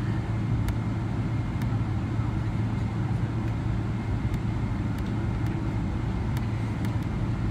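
Steady low cabin rumble of a Boeing 777-300ER taxiing, its GE90 engines at idle, with a few faint scattered ticks.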